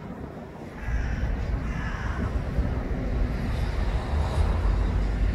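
Outdoor city background: a steady low rumble that gets louder about a second in, with two short calls around one and two seconds in.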